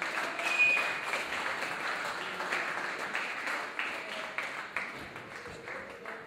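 Boxing crowd cheering and clapping during a bout, swelling about half a second in and easing off toward the end, with a few sharp knocks through it.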